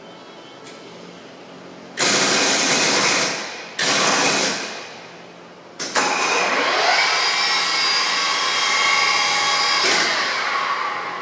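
MAS VO 32 radial drill running under power: two short bursts of machine noise about two and four seconds in, then the spindle drive starting up with a rising whine, running steadily for about four seconds, and winding down with falling pitch near the end.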